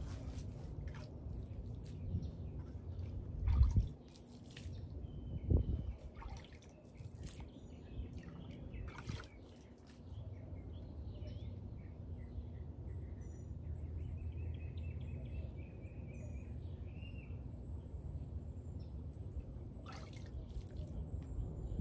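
Water poured from a bucket, trickling and dripping onto garden soil around a plant, with small birds chirping. Two dull thumps about two seconds apart, a few seconds in, are the loudest sounds.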